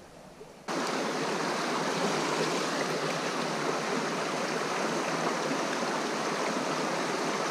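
Steady rushing of a small stream's flowing water. It comes in abruptly less than a second in, after a short near-quiet moment.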